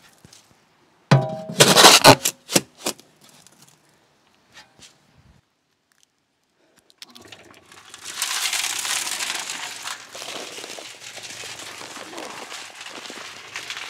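A shovelful is tipped into the steel drum of a small cement mixer with a loud clatter about a second in. After a pause, the electric mixer starts about seven seconds in and runs, its drum turning with a steady rattle over a low motor hum.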